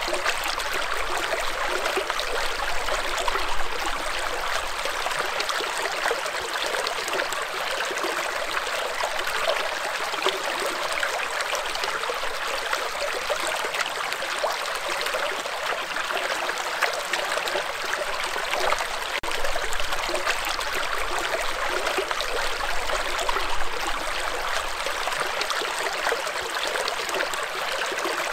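Shallow rocky stream flowing over and between boulders: a steady rush of water with fine trickling and splashing mixed through it.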